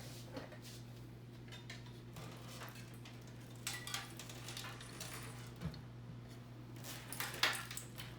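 Light clicks, taps and rustles of a mid-tower PC case and its cables being handled and turned around, scattered irregularly with a few denser clusters, over a steady low hum.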